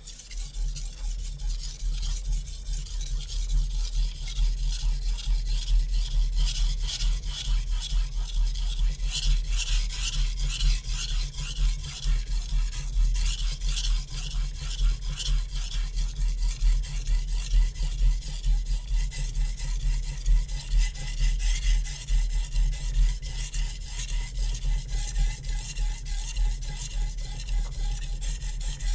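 Shun Classic chef knife's hard 61 Rockwell steel blade stroked rapidly back and forth across a wet Naniwa Superstone 400-grit water stone: a steady run of gritty scraping strokes. This is a sharpening pass on a coarse stone, still working the edge toward raising a burr.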